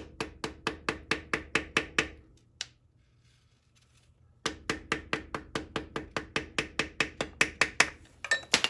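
Rapid, even hammer taps on the end of an oak stick, driving a new front differential side seal into its bore, about four to five a second. A run of about two seconds stops, and after a short pause a longer run follows.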